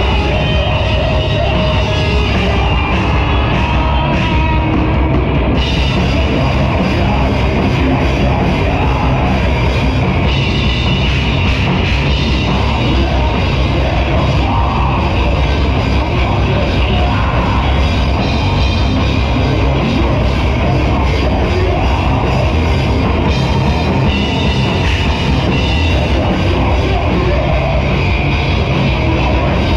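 Live rock band playing loud and without a break: electric guitars over a drum kit.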